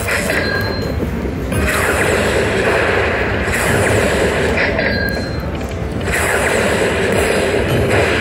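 Lightning Link slot machine counting up its bonus win: an electronic count-up sound effect that comes in several spurts with short lulls between, as each coin value is added to the total.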